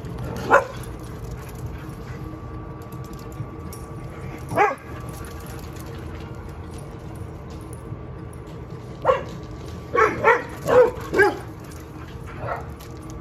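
Dog barks during rough play: a single bark about half a second in, another a few seconds later, then a quick run of about five barks around ten seconds in, and one fainter bark near the end.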